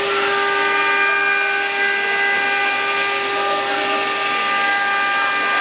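Spindle motors of an eight-head, four-axis CNC wood router running at speed: a steady whine with several overtones over a continuous hiss, a few higher tones coming in just after the start.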